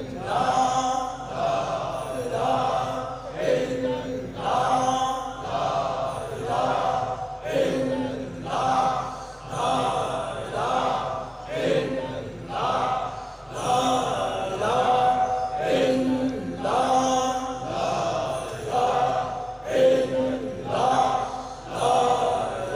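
Male voices in Sufi devotional chanting, a short phrase sung over and over, with a new phrase about every two seconds.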